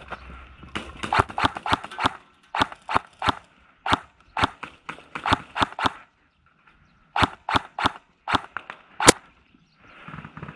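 Kingarms PDW airsoft electric rifle, fitted with a Titan electronic trigger, firing rapid single shots: a string of sharp cracks for about five seconds, a short pause, then about half a dozen more.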